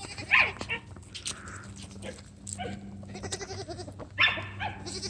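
Young Bourbon Red turkeys making short, rattly, gurgling attempts at a gobble, several calls in a row with the loudest a little past four seconds in; their gobble is only just coming in. A steady low hum runs underneath.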